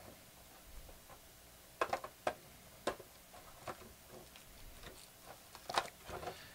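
Foil trading-card packs being taken out of a cardboard box and handled: a string of light crinkles and taps, the clearest about two seconds in, around three seconds in and near the end.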